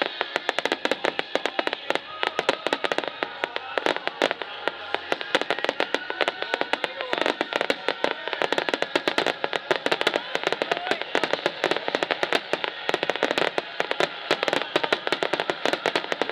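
Starmine fireworks barrage: a dense, continuous run of rapid bursts and crackling pops, many a second, with music playing underneath.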